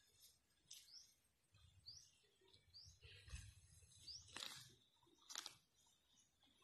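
Faint sound of a heifer grazing: crisp tearing crunches as it rips off mouthfuls of grass, several times over. A small bird gives short rising chirps, about four of them.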